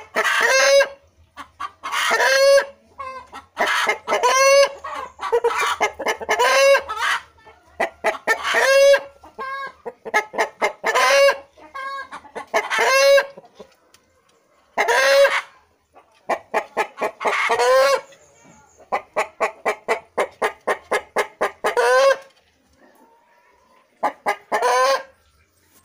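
Bangkok game rooster calling loudly and repeatedly: short harsh notes in bursts every second or two, with a quick run of rapid notes past the middle.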